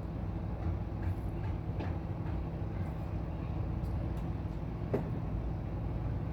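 800-watt microwave oven running with a steady low mains hum from its transformer, with a few faint sharp crackles and one stronger click about five seconds in, as the lithium batteries inside heat up.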